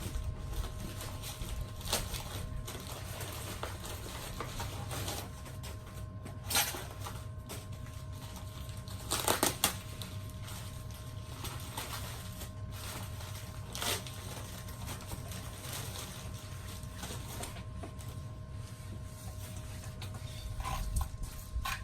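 Hands and tools handling car parts: a few scattered clicks and knocks, the loudest cluster about nine seconds in, over a steady low hum.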